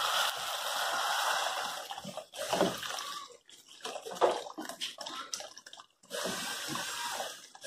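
Boiling water poured from an electric kettle into a pot of freshly fried rice, a steady splashing pour, while a wooden spoon stirs the rice with a few knocks against the pot. This is the stage where the cooking water goes onto the sealed grains.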